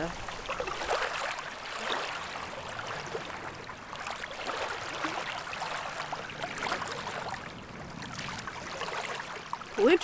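Small waves lapping and trickling over wet pebbles at a lake's edge, a steady uneven wash of water.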